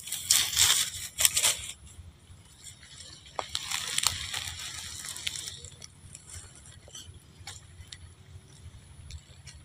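Dry palm fronds and leaf litter crunching and rustling underfoot, in bursts during the first two seconds and again from about three and a half to five and a half seconds in, with a few sharp snaps between.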